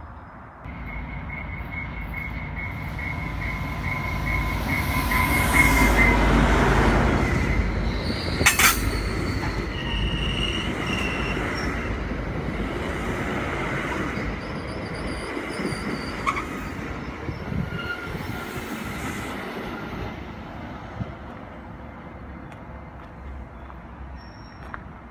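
Commuter train of Bombardier MultiLevel bilevel coaches approaching and passing close by, loudest about six seconds in, with wheels rumbling on the rails and high-pitched wheel squeal. A sharp clank comes about eight and a half seconds in, and the train sound then slowly fades.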